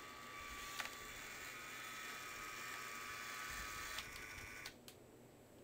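Lego Power Functions M motor and its geared-down drive train whining steadily as the motorized truck drives, with a few clicks. The whine cuts off suddenly near the end.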